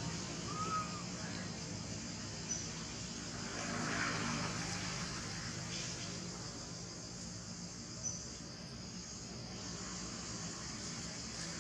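Steady high-pitched insect drone over a low, even hum, with a short rising-and-falling squeak early on and a couple of brief high chirps.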